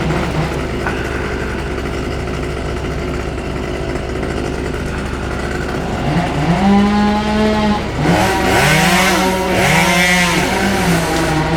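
Small chainsaw running in the tree: a steady engine sound, then revved to full throttle about six seconds in. It cuts for the last few seconds, its pitch dipping and recovering under load with a rasping hiss of the chain in wood.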